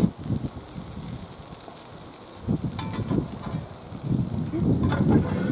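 Wind gusting on the microphone with an irregular low rumble, strongest near the end, with a couple of short metallic clinks from a metal spatula at the cast-iron grill.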